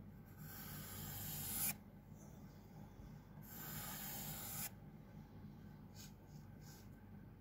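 Pencil scratching across textured drawing paper as long lines are drawn: two long strokes, each growing louder for over a second and cutting off sharply as the pencil lifts, then a few short, fainter strokes near the end.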